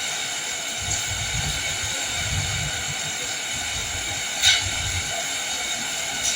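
Steady hiss of heavy rain, with a low rumble under it from about a second in to about five seconds, and a few sharp ticks of drops striking something, the loudest about four and a half seconds in.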